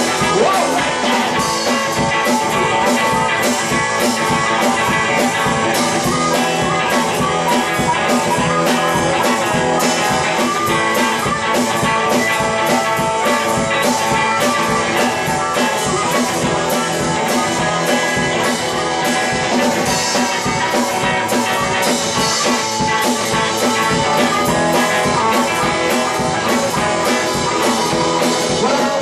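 Live blues trio playing an instrumental passage: harmonica over electric guitar and drums keeping a steady beat.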